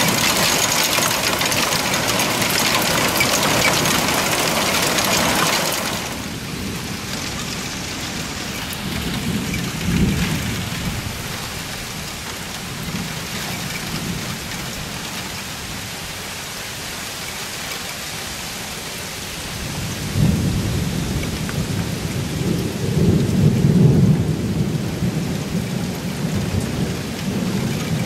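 Heavy rain pouring down, easing to a lighter patter about six seconds in. Low thunder rumbles once around the middle and then rolls on, louder and longer, through the last third.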